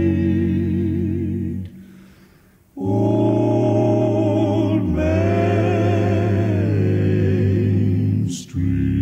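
Soundtrack of a male close-harmony vocal group singing long held chords with vibrato, apparently unaccompanied. The sound fades away about two seconds in and comes back a second later on a new chord. It breaks off briefly with a click near the end.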